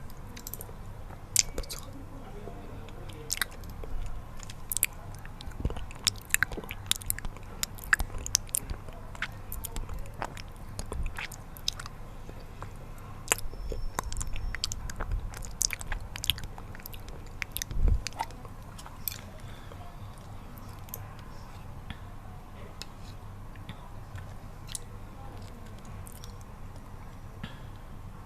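Close-miked eating: biting and chewing with many sharp, wet mouth clicks, thinning out after about twenty seconds, over a steady low background hum.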